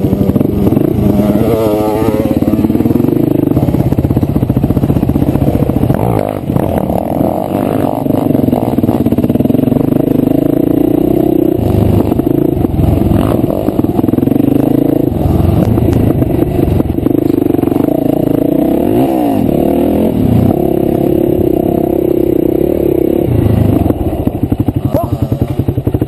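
Enduro dirt bike engine heard up close from on board while riding a dirt trail, its pitch rising and falling again and again as the throttle is opened and closed.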